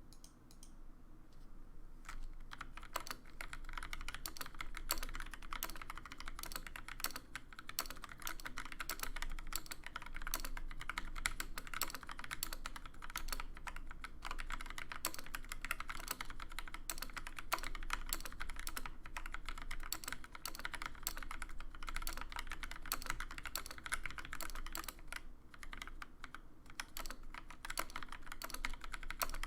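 Typing on a TX75 mechanical keyboard with lubed Gateron Black linear switches in a brass plate: a fast, continuous stream of keystroke clicks starting about two seconds in.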